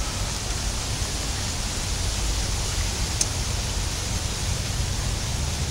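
Steady outdoor background noise: an even hiss over a low rumble, with one short click about three seconds in.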